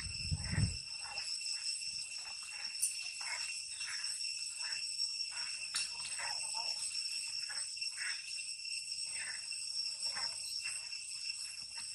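Steady, high-pitched drone of insects, most likely cicadas, holding several fixed tones, with short scattered sounds from the tree breaking in every half second or so.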